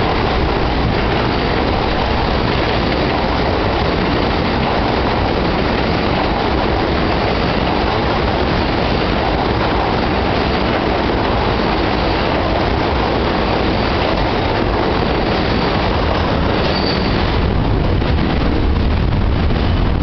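New York City subway train crossing a steel bridge close by, its wheels and cars running loud and steady on the track, easing off slightly near the end.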